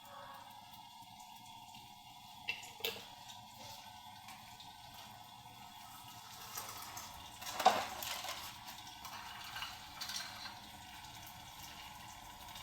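Tap water running steadily into a pot or sink, with a few knocks of cookware, the loudest about two thirds of the way through.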